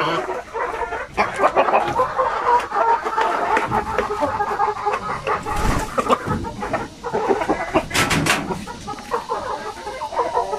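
Chickens, a rooster and hens, clucking continuously in a coop, with a brief run of sharp clicks about eight seconds in.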